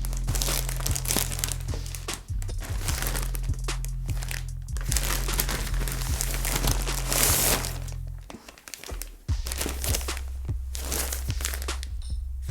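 A shipping bag crinkling and rustling as it is opened and handled, over background music with a steady bass line that drops out briefly a little past eight seconds.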